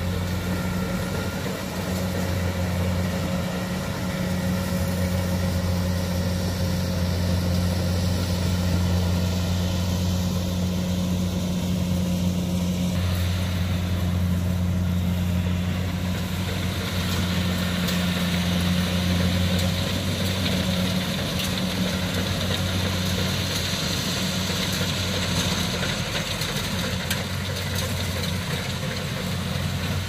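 Kubota DC68G combine harvester running steadily as it cuts ripe rice: a steady low engine drone.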